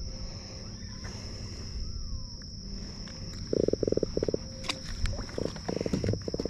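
A small black drum held out of the water, drumming: rapid low croaking pulse trains in two bouts, the first about three and a half seconds in and the second near the end.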